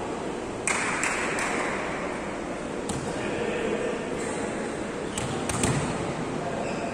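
Volleyball play in a sports hall: several sharp smacks of the ball being hit, with crowd noise throughout and a sudden burst of crowd noise about a second in that fades over the next two seconds.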